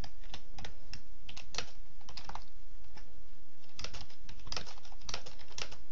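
Typing on a computer keyboard: irregular key clicks, with a pause of about a second midway and then a quicker run of keystrokes, over a steady low hum.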